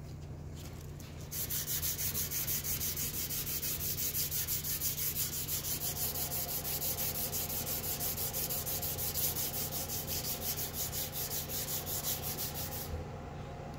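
180-grit sandpaper on a hard backing pad rubbed by hand over a cured powder-coated metal panel in quick, even back-and-forth strokes, levelling out back-ionization spots in the coating. The sanding starts about a second in and stops near the end, over a low steady hum.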